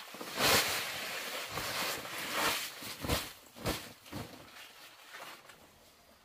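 Sand poured out of a woven plastic sack onto a stony dirt floor, a rush lasting about two seconds, followed by three sharp thumps as the sack is shaken out.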